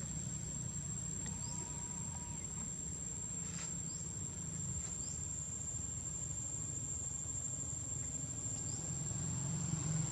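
Insects droning with one steady high-pitched whine over a low steady rumble, with a few faint short rising chirps scattered through.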